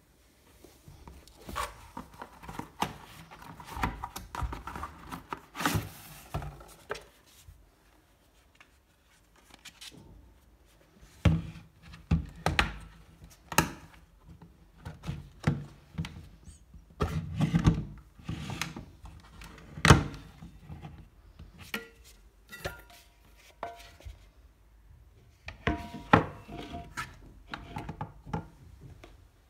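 Hands handling a two-tier stainless steel lunch box with a plastic outer shell: a stretch of rustling and rubbing, then irregular knocks and clicks as the lunch box is handled, its latches and lid worked and its tiers set down, with a few short metallic rings near the end.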